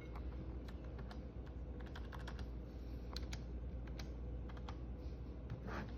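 Typing on a computer keyboard: a string of irregular key clicks over a steady low hum.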